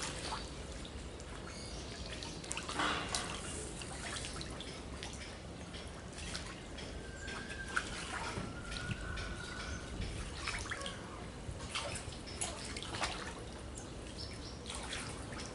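Water dripping and trickling in a small ditch: scattered faint drips and ticks over a low wash, with two brief faint high tones a little past the middle.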